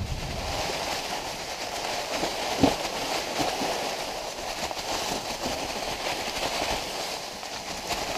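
Mountain bike rolling downhill over a trail thick with dry fallen leaves: a steady rustle of leaves under the tyres with small clicks and rattles, and one sharp knock a little over two and a half seconds in.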